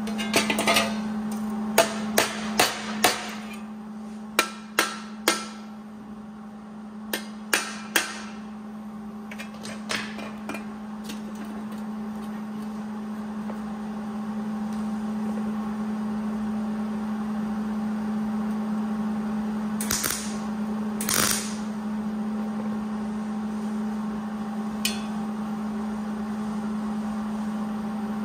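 Sharp metal knocks and taps on rusty steel headlight bucket parts at a steel workbench: about a dozen irregular strikes in the first eight seconds and a few lighter ones after. Two short bursts of hiss come about twenty seconds in, over a steady low hum.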